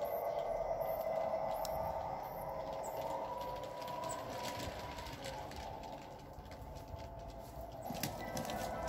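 Garden-railway model train running: the locomotive's electric motor whines steadily while the wheels click over the rail joints. The sound drops off for a few seconds midway and picks up again near the end.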